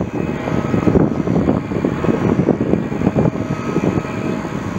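Airbus Helicopters EC155B1 twin-turboshaft helicopter running on the ground with its rotor turning: a loud, rough, fluttering rotor and engine noise with a faint steady turbine whine above it.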